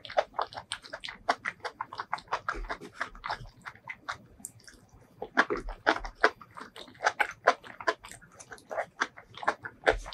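Close-miked chewing with rapid, irregular wet mouth smacks and clicks, from someone eating sauce-coated seafood and enoki mushrooms.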